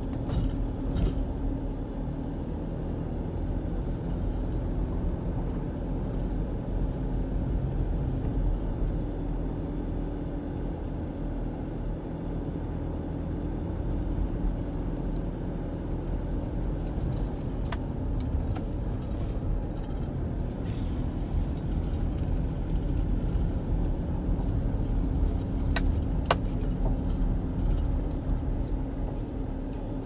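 Car driving on a rough, patched lane, heard from inside the cabin: a steady engine and tyre rumble, with scattered light clicks and rattles that grow more frequent in the second half.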